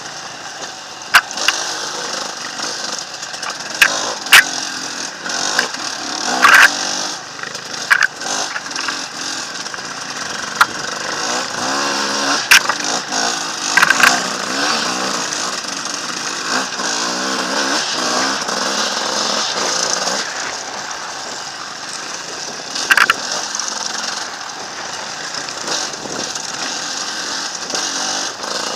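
Enduro motorcycle engine running under the rider, its revs rising and falling as the bike is ridden over rocky trail, with sharp knocks every few seconds from the bike jolting over the rocks.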